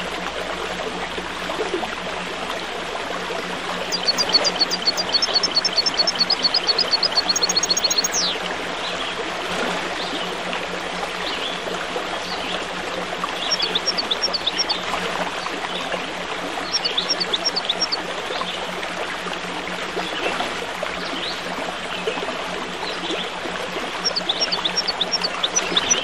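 Running stream water flowing steadily, with small songbirds chirping over it. The birds sing several bouts of rapid, evenly repeated high chirps.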